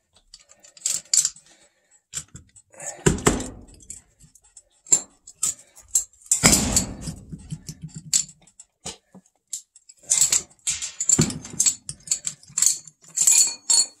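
Wrench working the mounting bolts of a furnace blower motor by hand: irregular metal clinks and rattles, with two heavier clunks about three and six and a half seconds in.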